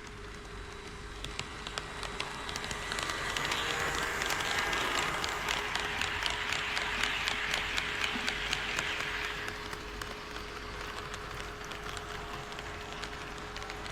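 HO scale model train running on KATO Unitrack, its wheels rattling and clicking over the rail joints. The rattle swells as the train passes close and fades again after about ten seconds, over a steady hum.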